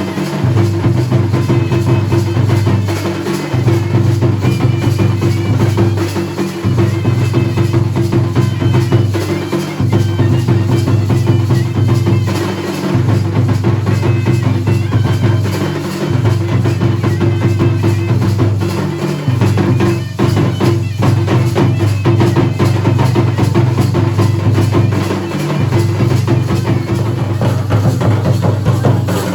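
Dhol and nagada drums beaten in fast, dense strokes, the deep bass beats falling into repeating phrases of about three seconds each.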